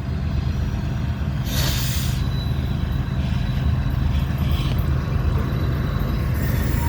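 Diesel train approaching with a steady low engine rumble. A brief hiss comes about a second and a half in.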